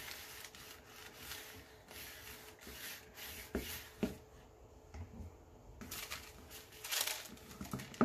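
Sandpaper rubbing strokes along the paper-covered edge of a small wood block, scuffing the paper edges for a rustic look; the strokes pause briefly about halfway through, then resume.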